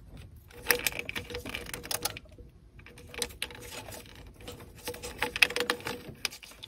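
Car wiring harness and plastic connectors being handled: a run of irregular light clicks and rattles, over a faint steady tone.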